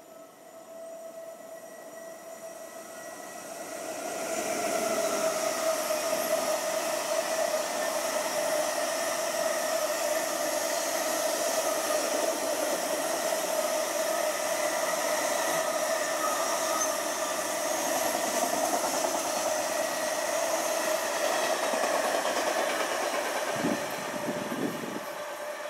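A long freight train of container and tank wagons passing on the railway line, a steady rushing rolling noise with a steady whining tone. It builds over the first four seconds, holds level, and drops off about two seconds before the end.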